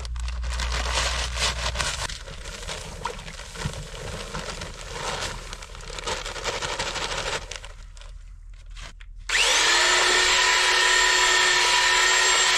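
Saw rasping through an aerated concrete (Ytong) block for about seven seconds, cutting out an opening. About nine seconds in, a loud, steady, high whine starts and holds.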